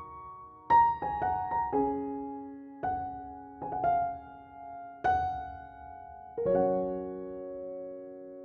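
Slow, soft piano music: single notes and small chords struck one after another, the last chord about six and a half seconds in held and left to fade.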